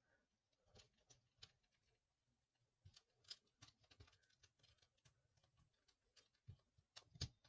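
Faint, scattered clicks and small scrapes of plastic pry tools working a phone's plastic frame loose from its body, with a sharper click near the end.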